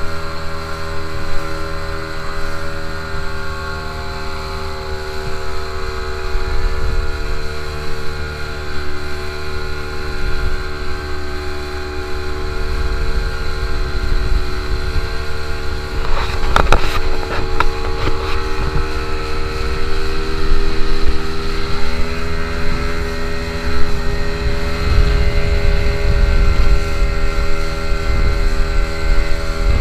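Motorboat engine running steadily, its pitch dipping slightly and recovering partway through, with a short cluster of knocks about halfway.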